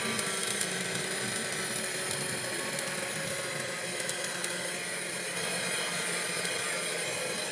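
Small DC motor of a homemade soda-can vacuum cleaner running steadily on a 9 V battery, a whine over the hiss of its fan.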